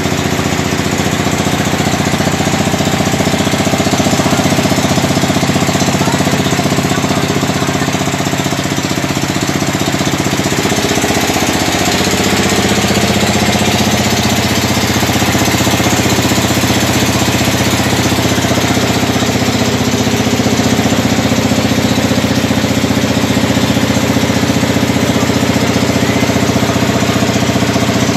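Engine of a small lake ferry running steadily underway, a loud, even mechanical drone; its note shifts slightly about ten seconds in.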